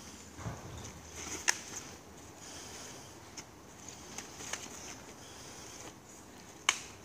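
Synthetic training swords knocking together in sparring: a sharp clack about a second and a half in and a louder one near the end, with a couple of lighter taps between.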